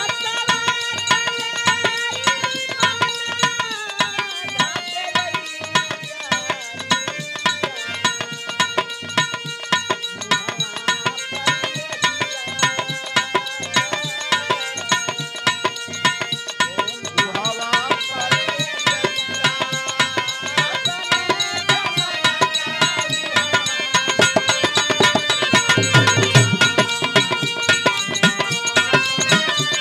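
Dholak drumming a fast, steady rhythm under a harmonium playing a melody over held chords, in an instrumental passage of Bhojpuri birha folk music. Around 26 seconds in the drum strokes grow louder and deeper.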